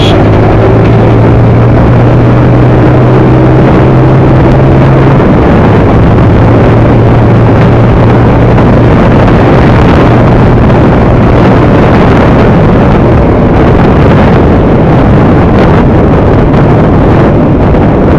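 Motorcycle riding at highway speed, with heavy wind rush on the microphone over a steady engine hum. A deeper engine note from the coach being overtaken sounds alongside and drops away about five seconds in.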